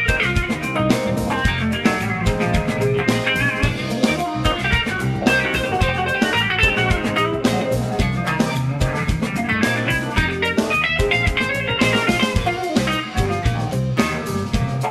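Clean-toned electric guitar playing a funk improvisation of quick single-note lines over a backing track with drums.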